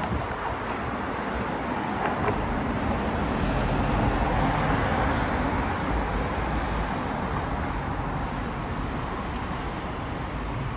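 City street traffic: cars and a van passing on the road beside the pavement, a steady rush of engines and tyres that swells as a vehicle goes by mid-way through.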